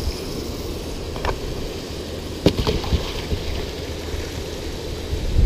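Steady low rumble of wind and water on the microphone in an open boat, with a few sharp knocks about one and two and a half seconds in.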